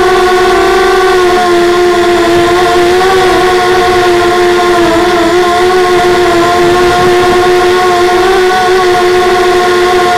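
Steady high-pitched whine of a small electric motor driving the FPV craft, one pitch with overtones holding nearly level, dipping slightly about five seconds in.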